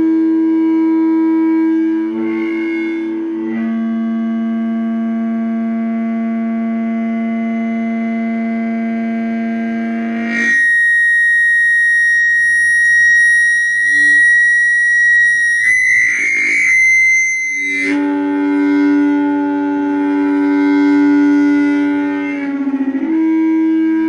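Audio feedback from a stereo, a loud, steady pitched tone ringing through the speakers. It starts as a low drone that shifts pitch a few times, jumps to a shrill high whine about ten seconds in that wavers, then drops back to a low drone about eight seconds later.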